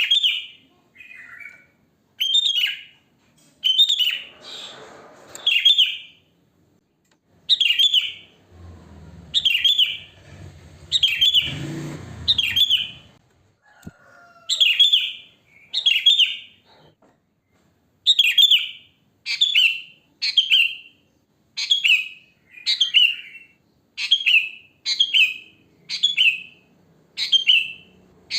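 Sooty-headed bulbul calling: short, bright chirping phrases repeated about once a second, coming faster in the second half. A low rumbling noise runs under the calls for a few seconds in the middle.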